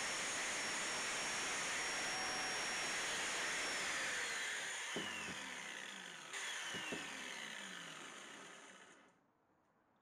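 Angle grinder running with a steady high whine against a small wooden letter clamped in a bench vise. About four seconds in it is switched off and its pitch falls as it winds down, with a brief surge just after six seconds, until it is quiet near the end.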